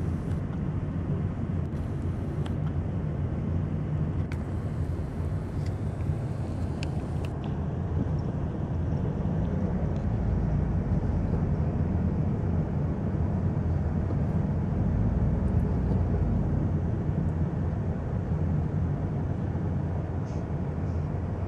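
Steady low rumble of engine and tyre noise heard from inside a vehicle's cabin as it moves slowly in backed-up traffic, growing a little louder midway.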